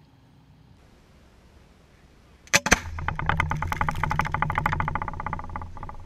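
A firework going off at close range: two sharp bangs about two and a half seconds in, then about three seconds of rapid crackling pops over a low rumble that fade away near the end.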